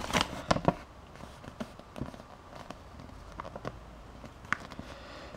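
Paper instruction leaflet crackling and rustling as it is handled and turned over, with a few sharp crackles in the first second, then only faint scattered ticks.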